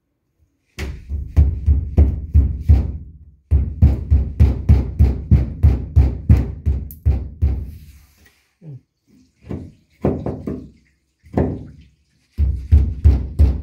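Drywall jab saw sawing by hand through sheetrock to cut an outlet-box opening: quick back-and-forth strokes, about three a second, each with a dull knock. The strokes come in runs, broken by short pauses about eight to twelve seconds in.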